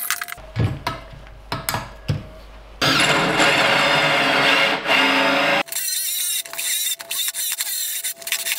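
Cordless drill running for about three seconds, drilling into a wall. Before and after it come scattered clicks and knocks of handling, and a last hacksaw stroke is heard right at the start.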